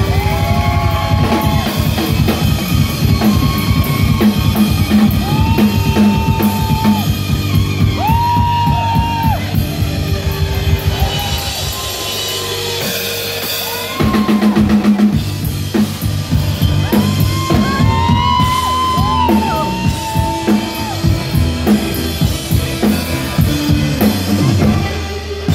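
Rock band playing live through a PA: a driving drum kit and bass under a lead line of held notes that bend up and down. The band eases off briefly about halfway through, then comes back in with a drum fill.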